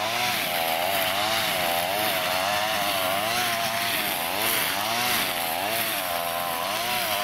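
Brush cutter with a line trimmer head running hard as it cuts tall grass. Its pitch rises and falls about once a second as the head bogs in the grass and frees.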